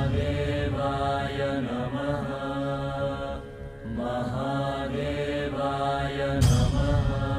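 A mantra chanted by voices over a steady low drone, in two long held phrases with a short break about three and a half seconds in. A loud deep hit lands near the end.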